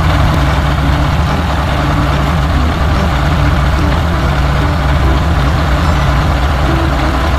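Heavy truck engine idling steadily, a low, even rumble.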